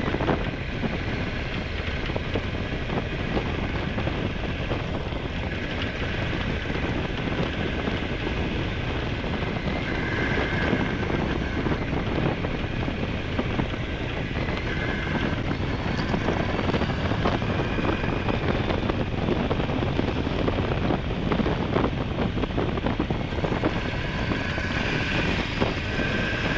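Honda Hornet 900's inline-four engine running steadily while riding, with wind rushing over the GoPro microphone.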